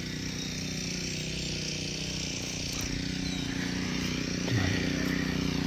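A small engine running steadily at one speed, growing a little louder toward the end.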